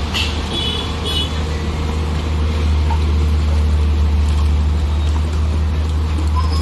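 Heavy diesel engine of earthmoving equipment running steadily with a deep, even hum. A few brief high-pitched squeals come in the first second or so.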